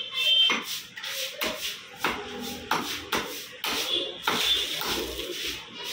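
Raw chicken pieces being handled by hand on a stone counter: irregular slaps and knocks as the meat is pulled apart and tossed down.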